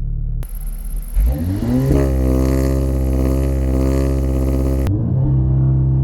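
Audi S3's 2-litre engine during a launch-control start: its pitch climbs steeply about a second in, holds high, then drops at a gear change about five seconds in, over a steady hiss.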